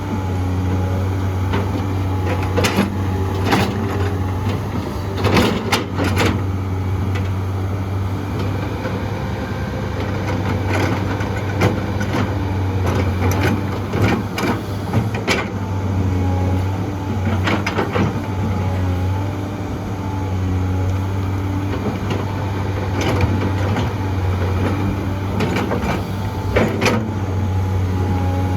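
Heavy diesel excavator running steadily at work, a constant low drone, with sharp knocks and clanks every few seconds.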